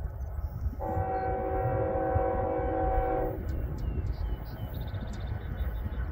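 Air horn of a GE ES44AC diesel locomotive leading a freight train, sounding one long steady chord of about two and a half seconds from about a second in, over a low rumble.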